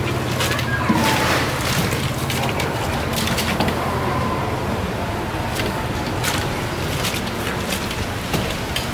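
Metal pots and utensils knocking and clinking now and then as a wooden-handled noodle strainer and ladle are worked in a broth pot, over a steady low hum.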